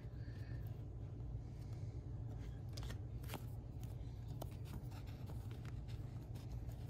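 Faint slides and light ticks of a stack of trading cards being handled by hand, the top card slipped to the back of the stack, over a steady low hum.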